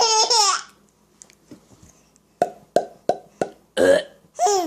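Playful mouth noises: a brief wavering vocal sound, then four quick popping clicks about a third of a second apart, and two short voice sounds near the end.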